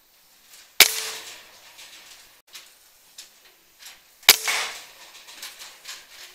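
Two PCP air rifle shots about three and a half seconds apart, each a sharp crack followed by a short ringing tail. A few faint ticks fall between them.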